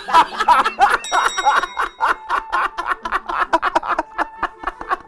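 Two men laughing hard in quick repeated bursts. About a second in, a short steady ringing chime sounds over the laughter.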